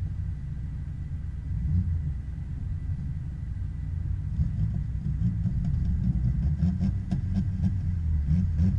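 Low, steady rumble of a car's engine and tyres as it rolls slowly in a line of cars, heard from on board, with a few faint clicks near the end.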